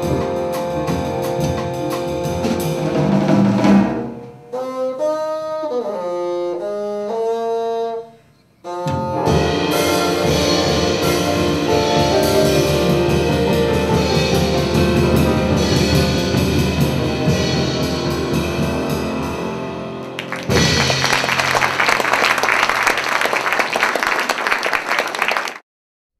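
Jazz quartet of bassoon, piano, upright bass and drums playing. About four seconds in, the bassoon plays a short unaccompanied phrase with bending pitch, and then the full band comes back in. About twenty seconds in, the music gives way to several seconds of audience applause, which cuts off abruptly.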